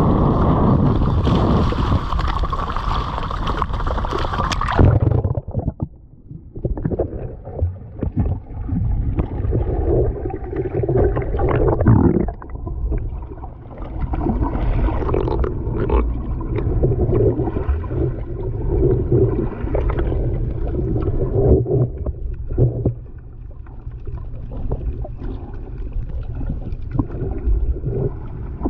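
Water splashing and churning at the surface for the first five seconds, then the action camera goes under and the sound turns muffled: low underwater rumbling and gurgling as the snorkeler moves through the water.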